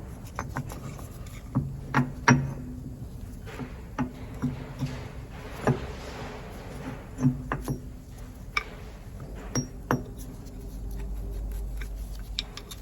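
A screwdriver prying and knocking against steel machine parts: a dozen or so irregular metallic clinks, each with a short ring.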